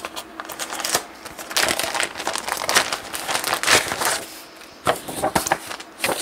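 Cross-stitch pattern leaflets being handled: irregular rustling and crinkling of paper as the sheets are picked up and shuffled.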